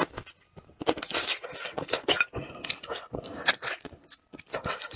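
Close-up eating sounds: a man biting, sucking and chewing saucy chicken feet, an irregular run of short wet mouth smacks and clicks.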